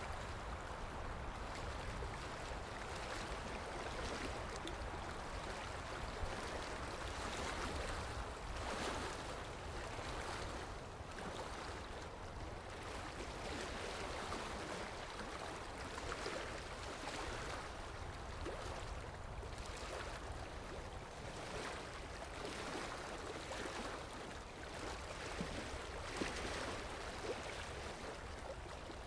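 Floodwater of a flash-flooding desert river rushing steadily, an even roar of water, with a low rumble of wind on the microphone.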